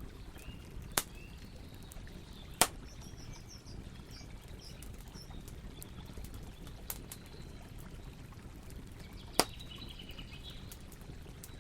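Campfire burning with a steady low rumble and sharp crackling pops, three of them loud, about a second in, near the three-second mark and near the end. Faint birdsong chirps in the background.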